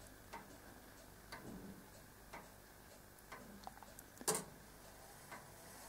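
Large grandfather clock's movement ticking faintly, about one tick a second, with one louder click about four seconds in.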